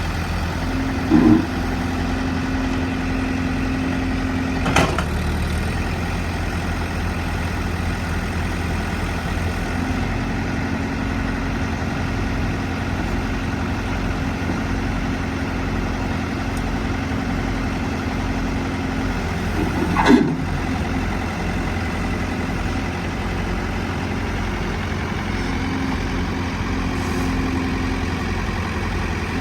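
John Deere 110 loader backhoe's diesel engine running steadily, with a whine that comes and goes in long stretches. Three short clunks: about a second in, about five seconds in, and about twenty seconds in.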